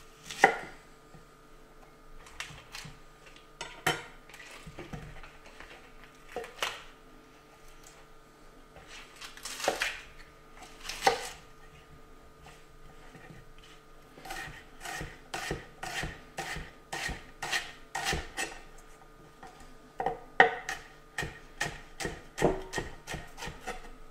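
Chef's knife cutting a spring onion on a wooden cutting board. There are a few separate strikes of the blade against the board at first, then from about halfway a quick, even run of slicing chops, about two to three a second.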